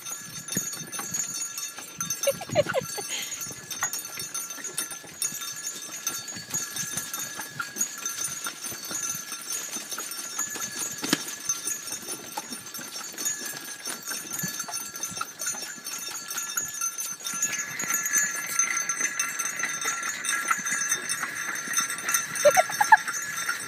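Bells on a buggy-pulling animal's harness ringing steadily with its movement, over irregular clopping of hooves. The ringing gets louder for the last several seconds.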